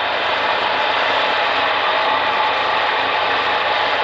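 Steady, loud rushing of wind buffeting a helmet camera's microphone during a parachute descent in high wind.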